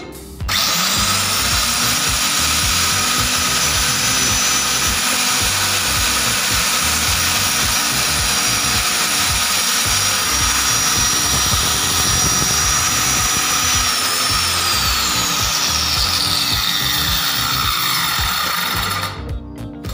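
Handheld electric grooving tool starting up and running at a steady high whine as it cuts a groove along a plywood panel edge. It is switched off about 14 seconds in, and its whine falls away gradually as the motor spins down.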